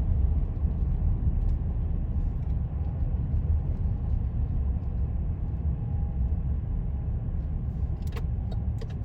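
Car driving: a steady low rumble of road and engine noise, with a few light clicks near the end.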